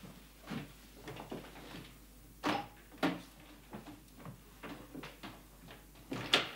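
Footsteps on a floor and a panelled door being opened, with a couple of sharp clicks of the handle and latch about two and a half and three seconds in, then the door shut near the end, the loudest knock.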